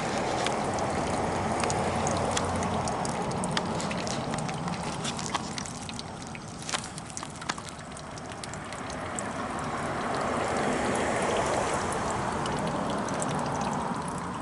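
Flush water from a toilet running out of a sewer pipe and splashing into a hole, with many small drips and splashes; it swells, eases about halfway through, then swells again.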